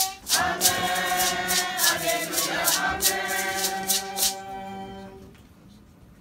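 A congregation singing a hymn together, with a sharp percussion beat about three times a second. The singers hold a final long note that fades out about five seconds in.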